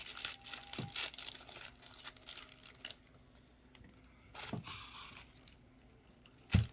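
Plastic wrapper crinkling and tearing as a small toy is unwrapped. It comes in rustling bursts over the first three seconds and again past the middle, with a short knock near the end.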